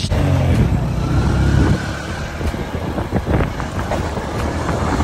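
Street traffic: a motor vehicle's engine runs loud and close for the first two seconds, its pitch falling as it goes by, then fades into general street noise with a few scattered knocks.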